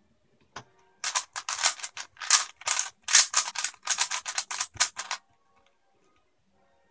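A 3x3 speedcube being turned at speed in a speedsolve: a single click about half a second in, then a dense run of plastic clacking for about four seconds that stops abruptly.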